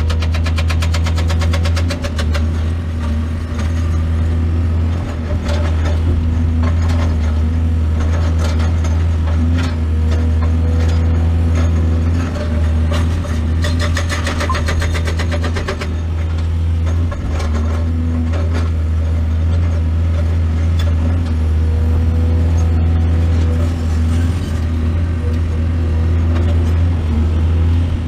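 Heavy diesel engine of an excavator running steadily at working speed.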